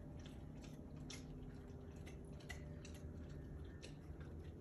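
A vizsla licking and lapping water from the mouth of a small plastic water bottle: faint, irregular wet clicks of tongue on plastic, a few a second.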